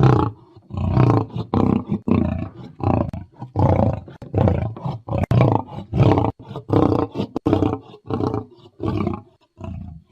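Lion roaring: a long roaring bout of short, repeated roars, about two a second, growing fainter toward the end.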